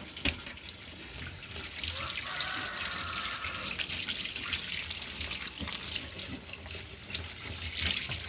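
Water running steadily from an open tap and splashing onto a wet counter.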